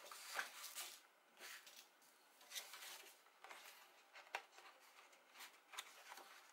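Faint rustling and light ticks of white card stock being handled and folded, with a small pick working at its cut slits.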